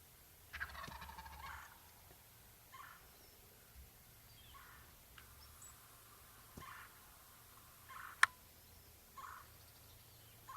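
Wild turkey gobbling once, a rattling call about half a second in, followed by short turkey calls every second or two. A single sharp click near the end.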